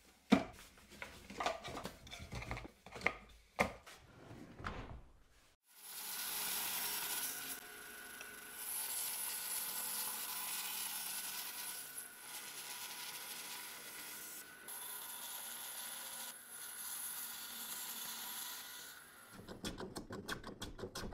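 Bandsaw cutting a block of white oak: a steady hiss with a constant hum, dipping briefly a few times as the cut goes on, from about six seconds in until near the end. Before it there is a run of irregular knocks and rustles, and after it quick scraping clicks.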